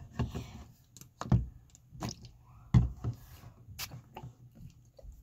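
Several short spritzes from a Mario Badescu facial mist pump-spray bottle, each a quick, sudden sound, mixed with small knocks from the bottle being handled.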